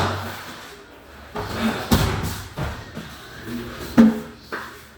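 Three dull thumps and knocks, about two seconds apart, from hands-on body work during a shoulder treatment.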